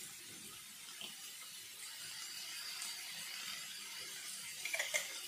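Faint steady hiss of stir-fried vegetables sizzling in a frying pan on a gas stove, with a few soft clicks near the end.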